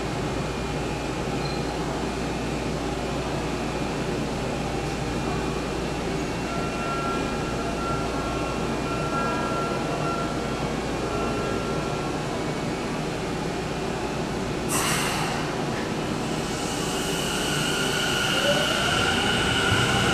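Tokyu 5050 series electric train standing at the platform with a steady hum and rumble, a short sharp hiss about three-quarters of the way through. Near the end its Hitachi IGBT-VVVF inverter starts up with a rising whine and the train grows louder as it begins to pull away.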